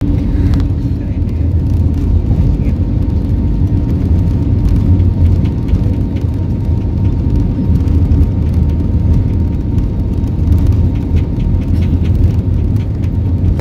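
Airliner cabin noise on the take-off roll: the engines and the wheels on the runway make a loud, steady, low rumble, with faint light rattles near the end.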